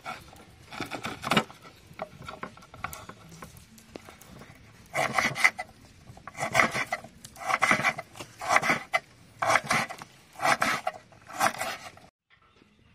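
Large kitchen knife cutting through fresh ginger root on a wooden chopping board. A few lighter cuts come first, then a steady run of rasping strokes about once a second as the fibrous root is chopped into chunks.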